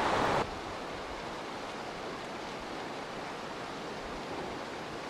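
Steady, even rushing noise of the open air on a glacier, with no distinct footsteps or other events. A louder rush cuts off abruptly about half a second in.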